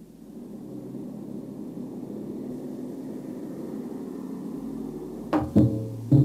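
Steady low rumble, then three loud knocks in quick succession near the end.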